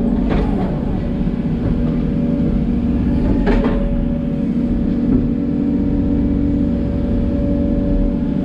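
Hidromek 140LC excavator's diesel engine running steadily under work, with a constant drone, and two brief rushing noises near the start and about three and a half seconds in.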